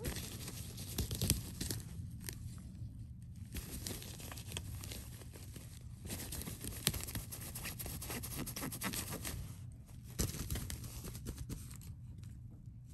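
Fabric cat tunnel rustling and crinkling as a kitten rolls and paws about inside it, in long stretches with brief lulls, dying down near the end.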